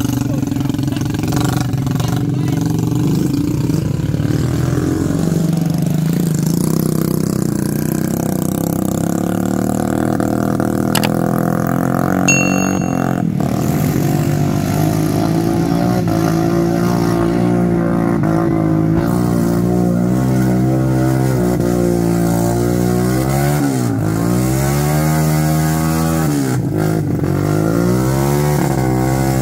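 Small motorcycle engines running under load through deep mud, revving up and down repeatedly near the end as the bikes labour with sacks of unhulled rice.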